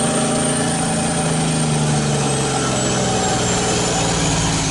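Diesel engine of a tractor-trailer running steadily, heard from the cab, with a faint high whine that slowly falls in pitch.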